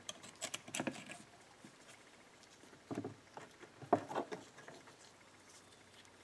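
Faint metallic clicks and light scrapes of clutch plates being handled and fitted into the clutch basket of a Yamaha Blaster engine. They come in two short clusters, one at the start and one about three seconds in.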